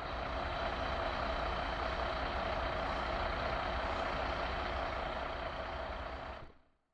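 Fire engine running steadily, a steady mechanical hum with a faint high whine; it fades out near the end.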